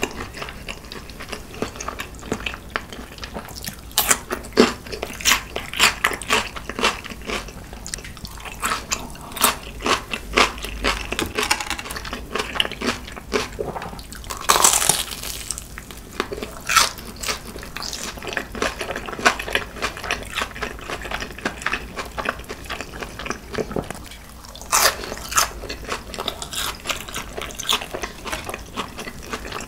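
Close-miked eating sounds: biting and chewing crispy seasoned fried chicken and cheese balls, with many sharp crunches and crackles and a longer, louder bite about halfway through.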